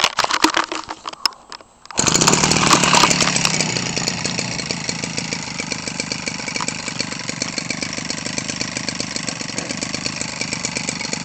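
Echo 25cc two-stroke engine, converted for a model airplane and fitted with an 18x6 propeller, is hand-started after a few knocks and clatters: it catches about two seconds in, runs a little louder for a moment, then settles into a steady idle.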